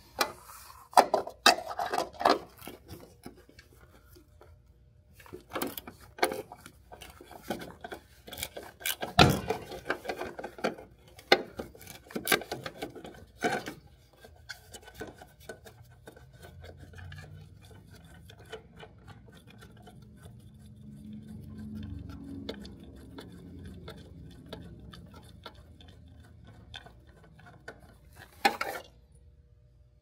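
Hand work on a vehicle's interior: a run of sharp knocks, clinks and rattles of tools and metal and plastic parts, loudest about nine seconds in, easing into quieter rubbing and scraping with a low rumble, then one more knock near the end.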